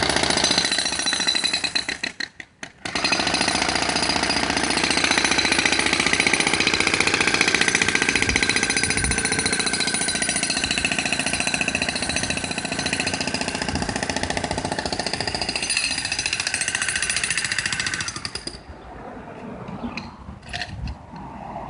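A large jackhammer hammering rapidly and steadily, with a brief pause about two seconds in. It stops near the end, leaving a few faint knocks.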